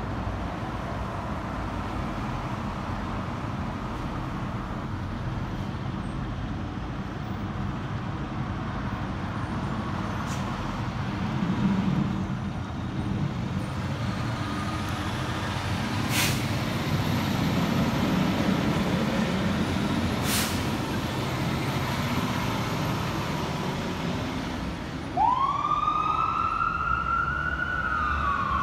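Fire engines' diesel engines running as the trucks pull out of the station bays, growing louder partway through, with two short sharp sounds in the middle. About 25 seconds in, a fire engine siren starts its wail, rising quickly and then slowly falling.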